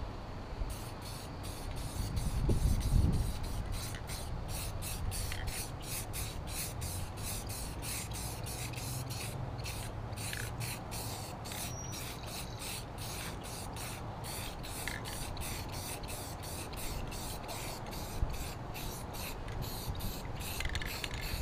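Aerosol spray can of red paint spraying steadily onto the underside of a mower deck: a continuous hiss with quick, irregular ticks running through it. A low rumble comes about two to three seconds in.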